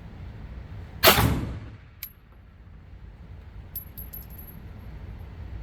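A single 9mm pistol shot about a second in, sharp and echoing in an indoor range, followed about a second later by a sharp click and then by a few light metallic clinks near four seconds in.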